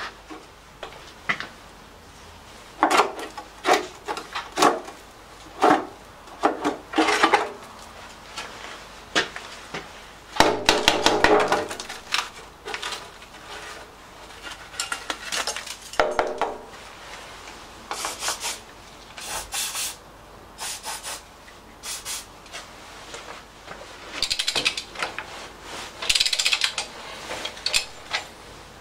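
Hand dismantling of a seized Lister LR1 air-cooled diesel's top end: scattered scrapes, clinks and knocks of metal parts and tools, with a longer grating scrape about ten seconds in.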